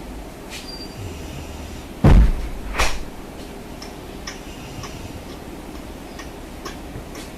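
A heavy thump about two seconds in, then a sharper knock less than a second later, over steady background noise, with a few faint clicks after.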